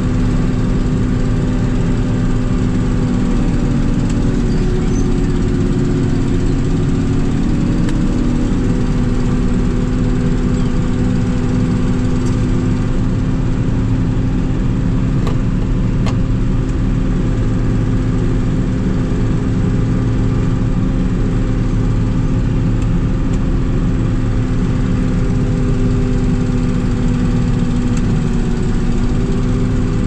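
Combine harvester running steadily with an even mechanical drone, its pitch shifting slightly a few seconds in.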